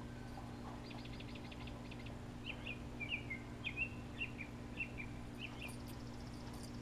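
A songbird calling: a fast dry trill of about eight ticks, then a string of about a dozen short, quick chirps, faint over a steady low hum.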